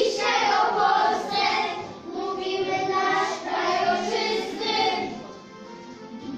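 A group of young children singing a Polish patriotic song in unison over instrumental accompaniment. The voices break off about five and a half seconds in while the accompaniment carries on.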